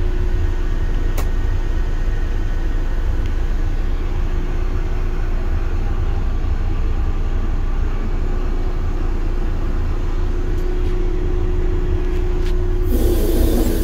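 Inside the cab of a CSX GE ET44AH locomotive: its GEVO-12 diesel engine running with a steady low rumble and a steady hum, with a single click about a second in. A louder, broader noise comes in just before the end.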